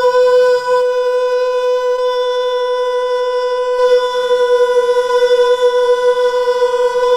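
One long, loud note held at a single steady pitch, with a full set of overtones, unbroken throughout.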